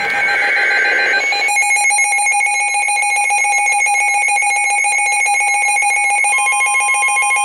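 Weather radio alert going off: a brief burst of warbling data tones, then a steady, shrill electronic alarm tone with a fast pulse. A second steady tone joins near the end. It is the alarm that announces a severe thunderstorm warning.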